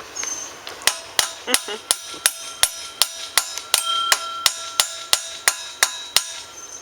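A hammer striking metal in a steady run of about three blows a second, each blow ringing, as a part is driven into place on a motorized bike.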